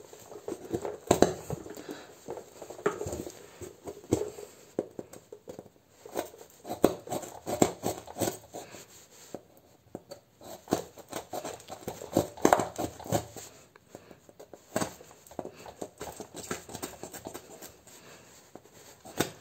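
Knife cutting a small hole through a cardboard panel: irregular spells of scraping and crackling strokes with short pauses between them.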